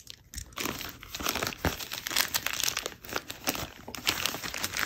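Glossy plastic mailer envelope crinkling and rustling as it is opened and a book is pulled out of it by hand, in a string of irregular crackles.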